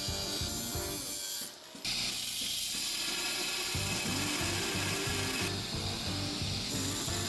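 Small forged steel cleaver blade being cleaned up, with a tool rubbing and scraping against the steel. There is a brief break about one and a half seconds in.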